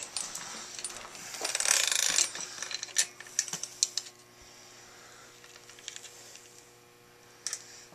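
Shadow Conspiracy half-link BMX chain being handled and fed onto the sprocket: the metal links rattle and click, loudest a couple of seconds in, then a few scattered clicks as it quietens.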